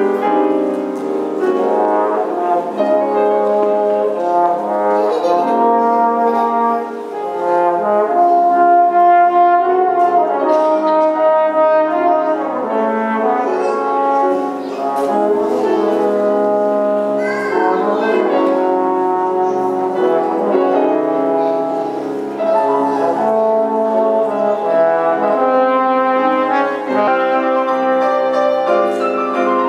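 Trombone playing a melody of held notes, with grand piano accompaniment.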